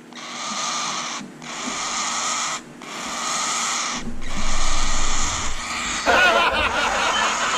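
Baby cockatiel chick giving raspy food-begging calls, repeated long rasps with short breaks, changing to a faster wavering call near the end: the chick is hungry.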